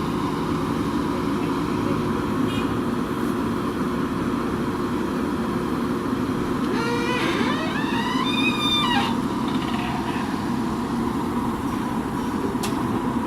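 JCB 3DX backhoe loader's diesel engine running steadily under work. About seven seconds in, a pitched whine rises and wavers for about two seconds.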